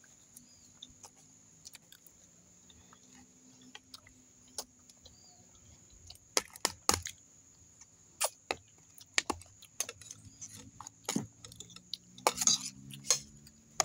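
Scattered clinks and scrapes of a metal spoon and fork against metal plates as food is scooped up, coming in small clusters, busiest in the second half.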